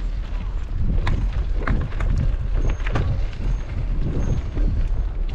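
Wind buffeting a GoPro microphone on a moving bicycle, with the steady rumble of tyres on rough asphalt and a few sharp clicks and rattles from the bike.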